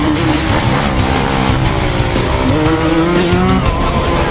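Background music with a dirt bike engine revving under it.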